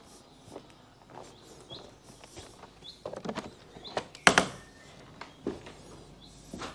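Footsteps on the ground with a few short bird chirps, then a single loud clunk a little past the middle, like a door or latch on a wooden hut.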